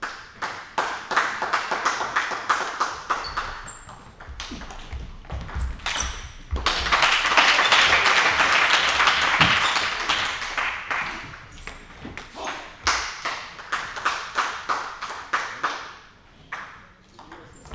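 Table tennis rally: the ball clicking sharply off rackets and the table in a quick back-and-forth. About six seconds in comes a few seconds of steady spectator applause, and then a second rally of clicks.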